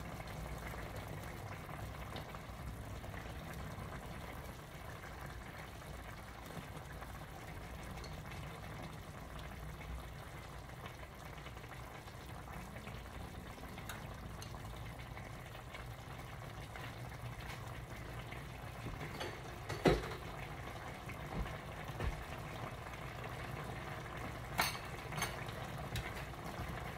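A pot of Filipino pork menudo stew simmering with a steady bubbling, being boiled for its last few minutes until done. A few sharp knocks sound in the second half.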